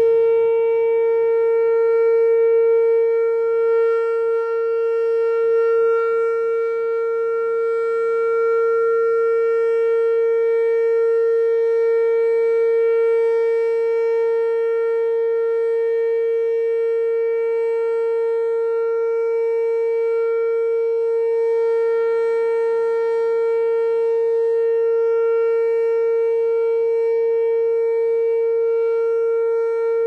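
Whelen WPS-2750 electronic outdoor warning siren sounding its Alert signal, a loud steady tone held at one pitch, the signal used for severe weather warnings. The pitch begins to drop at the very end.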